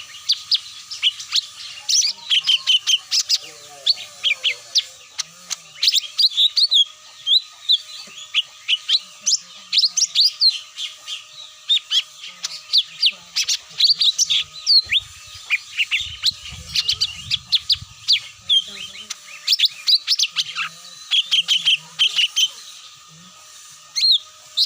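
Cucak mini bird calls used as a trapping lure (pikat): rapid, dense runs of sharp high chirps and call notes. A faint steady hum sits underneath.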